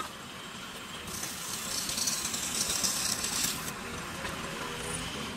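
Wood lathe running with a large wooden blank spinning and no tool cutting, a steady mechanical running noise. A light hiss rises about a second in and drops away again before the end.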